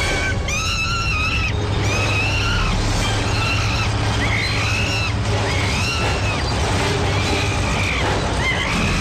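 Crawler bulldozer engine rumbling steadily, with a young gorilla's high-pitched cries repeated about once a second over it.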